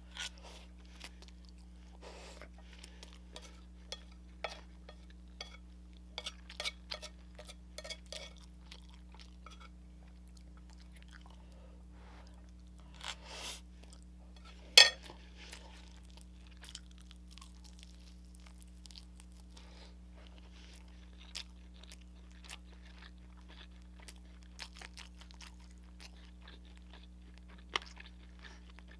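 Close-up eating sounds of spicy ramen noodles: wet chewing, mouth smacks and slurps in short irregular clicks, with chopsticks tapping a plate. There is one much louder sharp click about halfway through.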